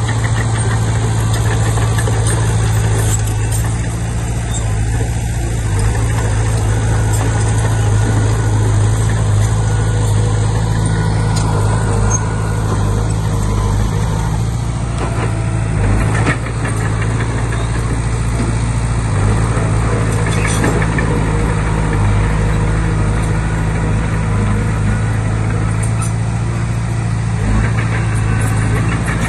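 Komatsu D20P bulldozer's diesel engine running steadily with a deep hum, with a few sharp knocks or clanks in the second half.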